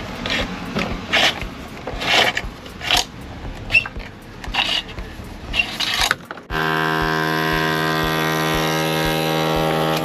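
Cables scraping and rustling as they are pulled back through plastic conduit boxes, in short irregular bursts. About six and a half seconds in, an electric drill starts and runs at a steady pitch, drilling through the masonry wall.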